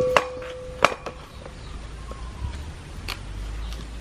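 Kitchen knife chopping peeled cassava root on a plastic cutting board: a few sharp knocks spaced unevenly, with a metallic ringing tone fading out over the first second.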